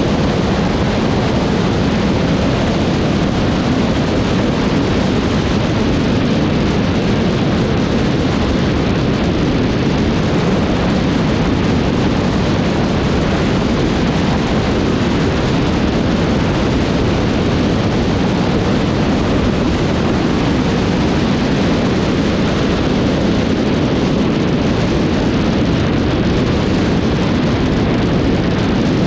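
Steady rush of wind on a wing-mounted camera together with the running Cessna 152's four-cylinder Lycoming engine.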